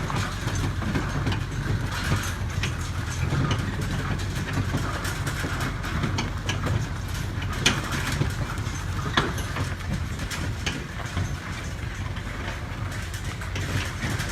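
A vehicle driving along: its engine runs as a steady low rumble, with a few sharp rattling clicks, the clearest about halfway through.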